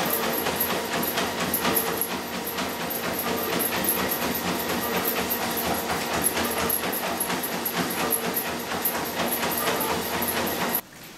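Spirit Fitness treadmill running with a steady hum and hiss, the dog's paws tapping in a quick, even rhythm on the moving belt. The sound cuts off suddenly near the end.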